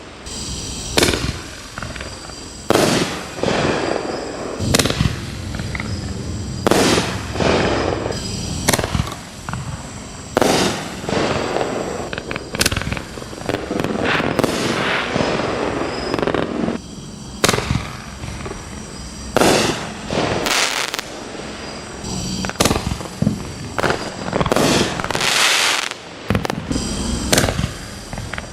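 Consumer 1.75-inch ball shell fireworks firing from a shooting cube: shells launching and bursting in the sky one after another, a sharp bang every one to two seconds.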